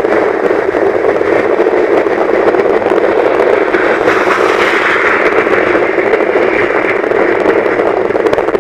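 Steady rush of wind and road noise heard from inside a moving car, swelling slightly about four seconds in.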